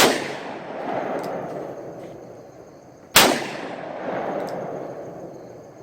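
Two .357 Magnum handgun shots about three seconds apart, each loud crack followed by a long echo that rolls away over a couple of seconds.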